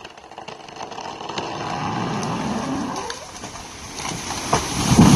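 Felled gum tree going over: a rushing swish of branches and leaves through the air builds up, then a heavy crash as it hits the ground about five seconds in.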